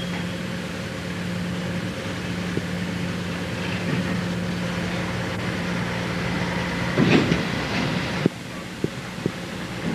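Chain ferry under way, hauling itself along its guide chains: a steady mechanical hum with clatter. About seven seconds in comes a louder burst of clanking that cuts off suddenly, followed by a couple of sharp clicks.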